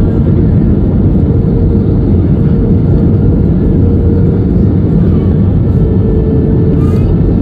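Steady cabin noise inside an Airbus A320 airliner on approach: loud rushing air and engine drone with a faint steady hum, heard from a window seat over the wing.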